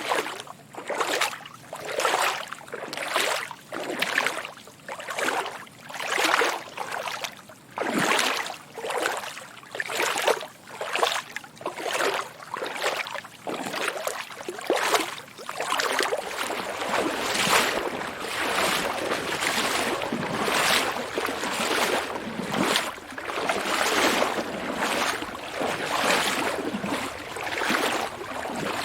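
Footsteps wading through water, each step a splash in a steady stride about once a second. About halfway through the steps come closer together and the splashing runs into a near-continuous sloshing.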